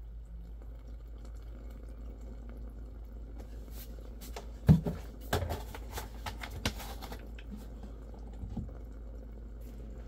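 Water running out of the open end of a PVC condensate drain line and splashing into a container, with a cluster of louder splashes and gurgles from about the middle on, the loudest a little before 5 seconds. The freshly cleared drain is flowing freely. A steady low hum runs underneath.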